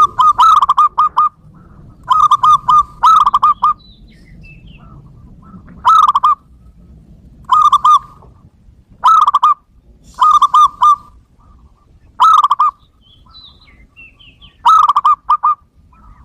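Zebra dove (perkutut) cooing: about nine short phrases, each a rapid run of soft staccato notes, repeated every second or two.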